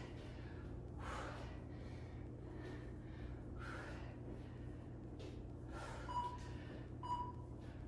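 Heavy breathing of a person exercising with dumbbells, a noisy breath every second or so. Near the end come three short electronic beeps about a second apart, like a countdown.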